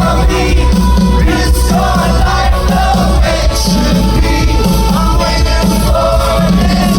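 Rock band playing live and loud, with singing over the band.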